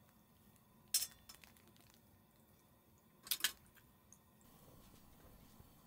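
Table knife clinking against a metal plate as a steak is sliced: one sharp clink about a second in, then a quick double clink around three and a half seconds in.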